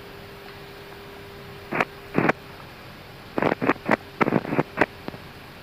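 Airbus A319 flight-deck background on final approach: a steady hiss with a faint steady hum. It is broken by short bursts of sound, twice about two seconds in and then a quick cluster from about three and a half to five seconds in.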